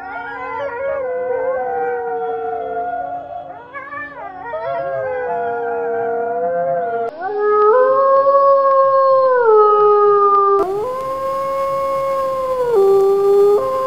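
Wolves howling: several overlapping howls wavering in pitch in the first half, then long single howls, each held steady after a rise at the start and sliding down at the end.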